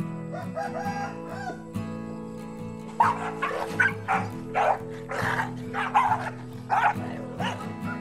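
Several dogs snarling and barking in a brief fight over food: a run of about six loud, harsh barks and snarls starting about three seconds in, over steady background music.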